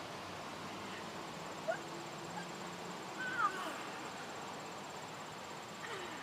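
Crickets trilling steadily, with a few short chirps about two and three and a half seconds in and a brief falling call near the end.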